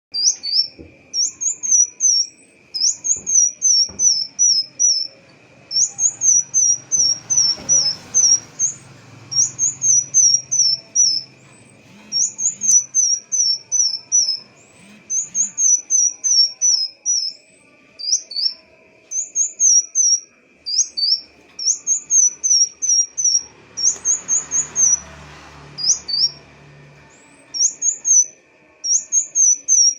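Kolibri wulung sunbird singing: repeated short, high-pitched phrases of four to six quick, sharp chirping notes, each phrase a second or so long with brief pauses between.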